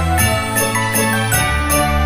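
Christmas-style background music with sleigh bells shaken on the beat, about two a second, over held notes and a bass line.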